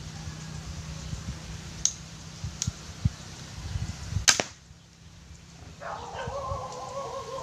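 A homemade sliding slingshot fires a steel ball with one sharp snap about four seconds in, after a few faint clicks. About a second and a half later an animal starts a drawn-out pitched call.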